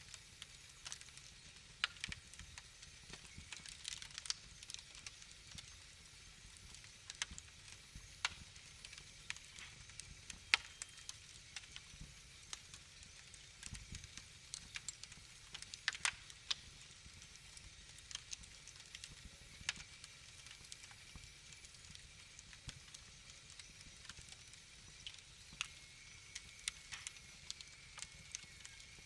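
Fireplace fire crackling: irregular sharp pops and snaps over a faint steady hiss.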